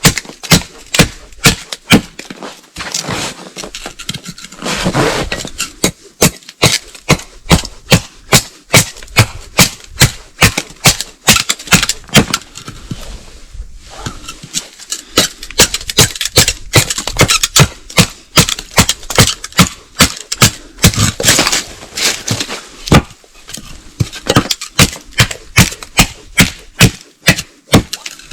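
Rapid, loud, sharp knocks repeating about twice a second, with a couple of brief pauses, like a tool striking wood.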